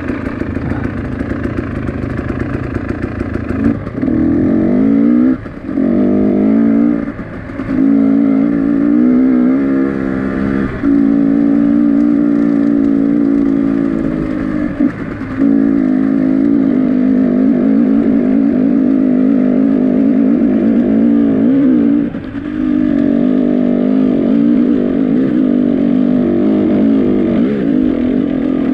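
Motorcycle engine under way, climbing in pitch as it is revved and dropping off briefly about half a dozen times as the throttle is shut for gear changes.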